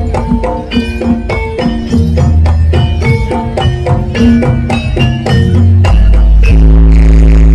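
Javanese jaranan music from a gamelan-style ensemble: a quick run of ringing metal-keyed notes over drums. A deep, sustained bass tone comes in about six seconds in.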